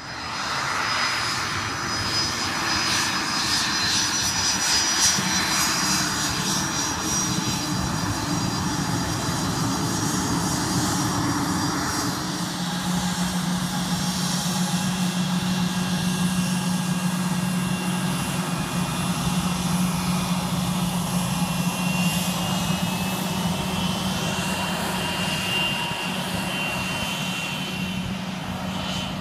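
Twin rear-mounted Rolls-Royce AE 3007 turbofan engines of a United Express Embraer ERJ-145 regional jet, running loud and steady as the jet moves along the runway, with a high whine over the rush. A steady low hum sets in about twelve seconds in, and a higher whine rises near the end.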